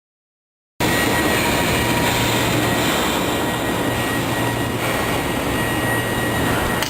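Automatic vertical-up welding carriage at work: a loud, steady hiss of arc welding over a low electrical hum. It cuts in suddenly after silence, about a second in.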